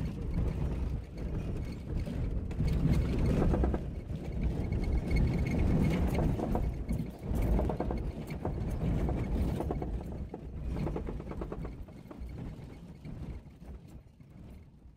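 Jeep Cherokee XJ driving off-road: a heavy, uneven rumble of engine and tyres over rough ground, with frequent knocks and rattles, dying away near the end.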